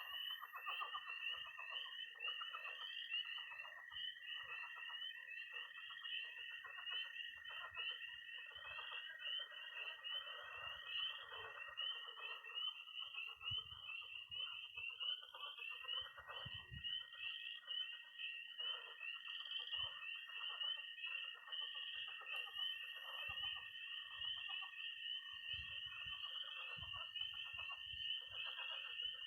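Night chorus of frogs and toads at a pond in early spring. Spring peepers' rapid high peeps run throughout; a steady high trill from toads drops out for a few seconds about halfway through; croaking pond frogs pulse beneath.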